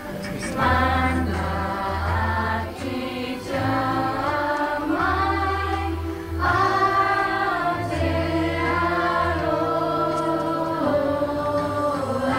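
Dance music: a song with voices singing together over a repeating bass line.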